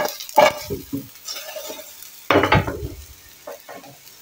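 French fries being stirred in a metal pan on a gas stove to reheat them: several short bursts of scraping and clatter, the loudest about two and a half seconds in.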